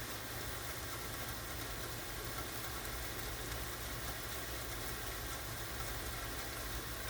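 Steady hiss of light rain and running, dripping water over a constant low rumble.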